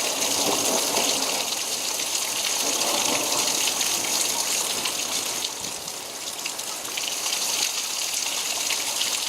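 Rain pouring steadily in a storm, a constant hiss.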